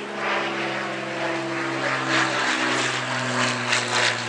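A loud, steady engine drone with a low hum and its overtones, dipping slightly in pitch a little past halfway.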